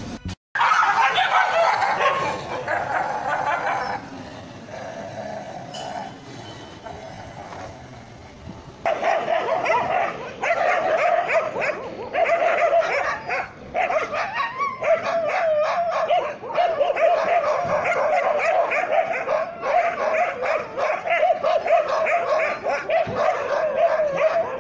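Dogs fighting, with barking, yipping and whining. About nine seconds in it turns into a loud, almost unbroken high-pitched yelping cry that wavers in pitch, with short breaks.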